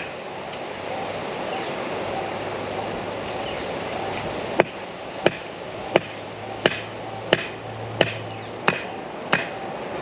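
Hammer blows in a steady series, starting about halfway through at roughly three strikes every two seconds, over steady background noise.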